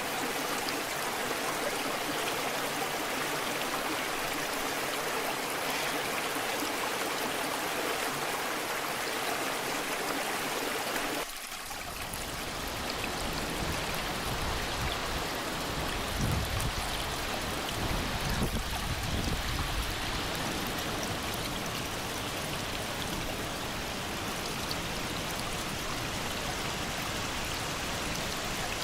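Waterfall water rushing and splashing as a steady noise. About 11 seconds in it changes abruptly to a deeper, rumblier flow with a couple of low swells.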